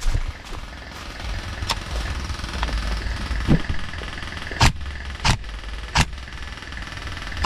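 Airsoft rifle of a Daniel Defense x Geissele build firing single shots: four sharp cracks about two-thirds of a second apart in the second half. Underneath is a steady low rumble with rustling from movement through dry leaves.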